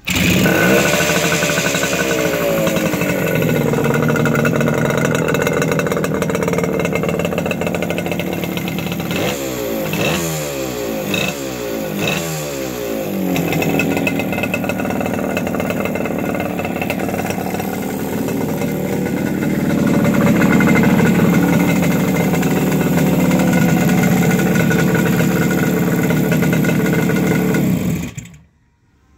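1972 Yamaha R5's 350 cc air-cooled two-stroke parallel twin running. It comes in loud with its revs falling back, is blipped several times in quick succession about a third of the way through, then runs steadily and cuts off abruptly near the end as it is switched off.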